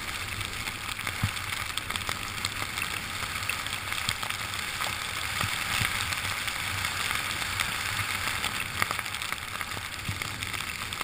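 Steady hiss of a ride down a ski run through fresh powder snow, with a few faint clicks along the way.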